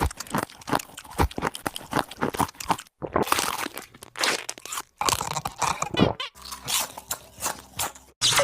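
Cartoon sound effects played one after another: a rapid run of crunching, crackling clicks, then after short breaks about three and five seconds in, further crunching noises that give way to a quieter stretch near the end.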